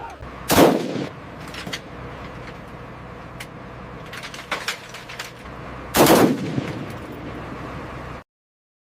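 Machine-gun fire: two loud bursts about five and a half seconds apart, with a few lighter scattered shots between them over a steady low hum. The sound cuts off abruptly near the end.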